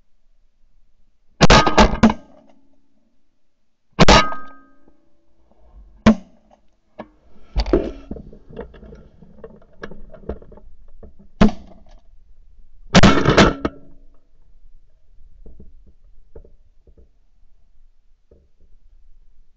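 Shotguns firing at ducks on the wing, several hunters shooting. A quick flurry of shots comes about a second and a half in, then single shots a few seconds apart, and another flurry about thirteen seconds in.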